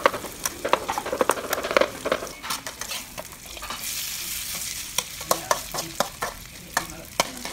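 A metal ladle stirring and scraping in a metal wok, clinking against the pan many times, while food fries in hot oil: first sliced shallots and garlic, then chili paste. A sizzling hiss swells about halfway through.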